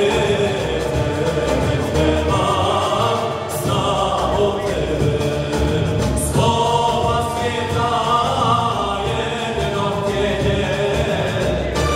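Male vocal group singing an Islamic devotional song together, with live accompaniment from a long-necked saz lute, a hand drum and keyboard.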